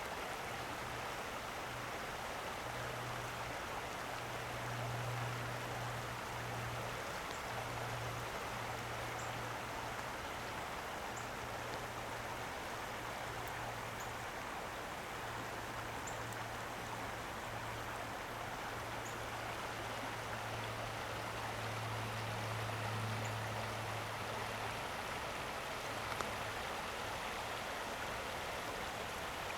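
Creek water flowing over rocks, a steady rushing, with a low hum that swells and fades underneath and a few faint high ticks.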